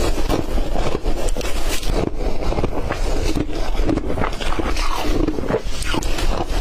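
Ice being bitten and chewed close to the microphone: a dense run of loud, irregular crunches and crackles.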